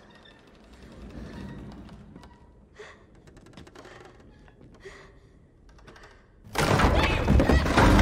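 Horror-film sound design: a tense low rumble with a few soft knocks, then a sudden loud crashing hit about six and a half seconds in that keeps going.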